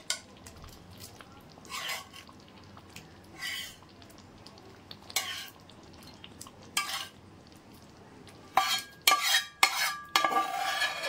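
Metal spatula scraping fried chicken pieces out of one metal pan into another holding thick gravy. There are a few separate scrapes about every second and a half to two seconds, then a quicker, louder run of metal-on-metal scraping near the end.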